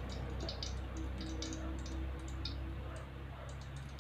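Cooking oil heating in an aluminium wok, giving off small, irregular crackles and pops over a steady low hum.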